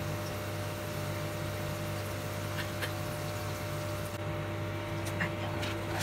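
Sweet potato chunks deep-frying in a stainless steel pot of oil, a steady sizzle over a low, even hum. The sizzle thins out about four seconds in, and a few light clicks follow.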